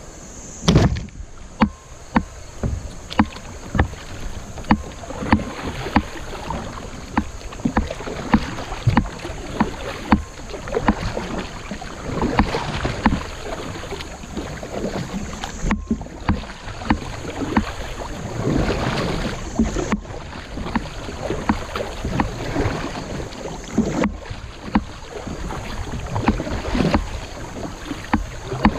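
Kayak paddle strokes splashing through fast creek water, with sharp knocks about once a second.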